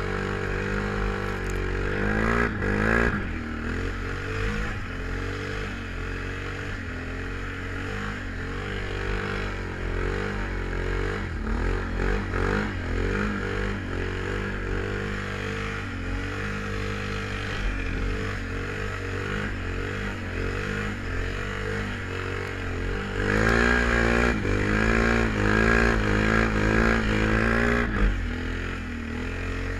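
Can-Am Renegade 1000 ATV's V-twin engine running under throttle, its note rising and falling as the rider works the throttle. It revs harder briefly about two seconds in, and again for about five seconds near the end.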